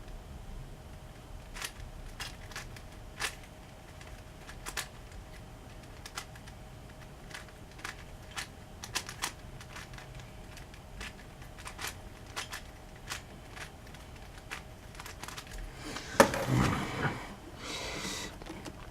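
Plastic clicks of a DaYan Megaminx puzzle being turned by hand, scattered one or two a second, then a louder, quicker flurry of turning and scraping near the end.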